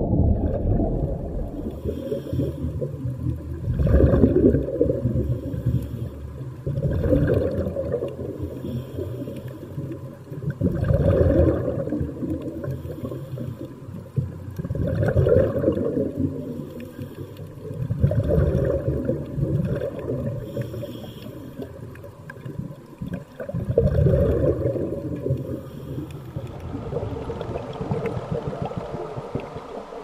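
Underwater recording of a scuba diver's exhaled bubbles, a gurgling rumble that comes in surges about every four seconds. Near the end the surges stop and give way to a steadier, quieter wash of water.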